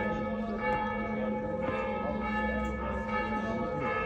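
Orthodox church bells ringing, struck about once a second, each new stroke sounding over the lingering ring of the last.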